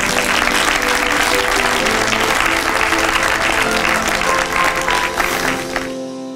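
Audience applauding over background music with held tones; the applause stops abruptly about six seconds in, leaving the music.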